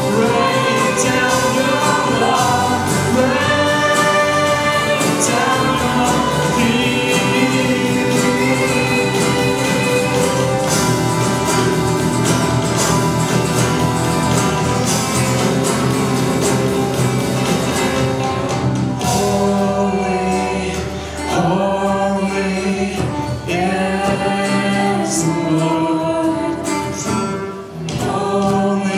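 A worship song sung by a group of voices over band accompaniment. The music thins out in the last third, with brief dips in loudness.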